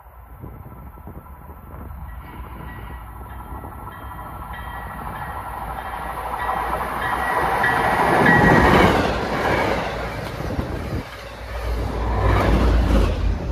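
A train approaching and passing through the station. It grows louder to a peak about eight to nine seconds in, with a steady high ringing during the approach and a heavy low rumble and clatter as it goes by, loud again near the end.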